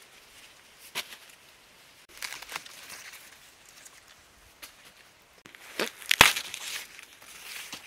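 An ear of maize being broken off its stalk by hand: a sharp snap near the end, with rustling and tearing of the dry husks and leaves before and after.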